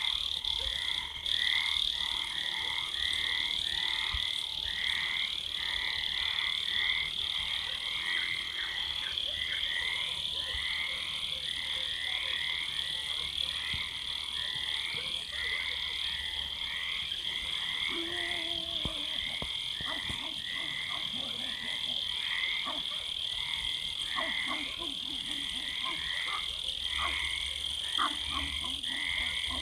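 Nighttime chorus of frogs, their short calls repeating about twice a second, over a steady high trill of crickets. A brief lower call sounds a little past halfway.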